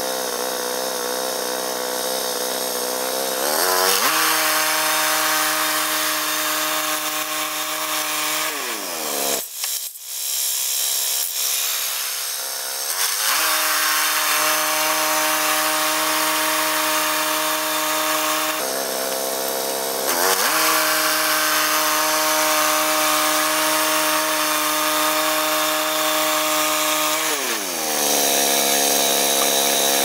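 Small gasoline engine of a Woodland Mills portable bandsaw sawmill running while the band blade cuts a log. Its speed drops and picks up several times, rising and getting louder near the end.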